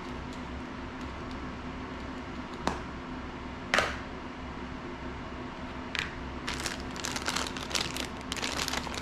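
A clear plastic zip bag of small parts being handled, crinkling in a run of crackles over the last few seconds. Earlier come two sharp clicks, over a steady low hum.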